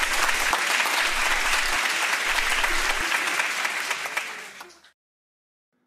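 Audience applauding: dense, even clapping that fades and stops about five seconds in.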